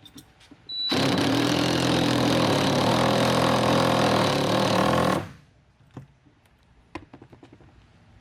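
A motor-driven machine starts abruptly about a second in, runs steadily and loudly for about four seconds with a hum and a hiss, then stops. Light clicks and handling knocks follow.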